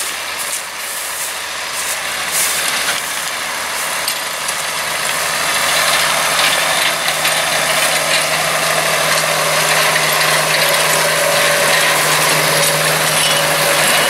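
New Holland T7 tractor running under load while pulling a McHale Fusion 3 Plus combined round baler-wrapper picking up silage grass. The engine and baler drone grows louder over the first several seconds as the outfit comes close, then holds steady, with a steady hum coming in about four seconds in.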